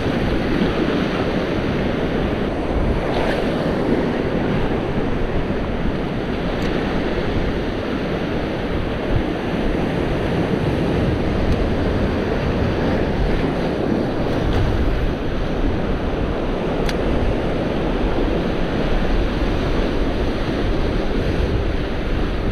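Sea surf washing against shoreline rocks in a steady wash, with wind buffeting the microphone. A few faint clicks sound now and then.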